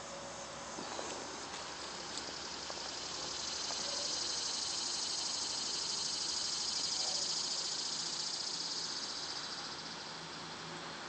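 High-pitched insect buzzing, finely pulsing, that swells a few seconds in and fades away near the end.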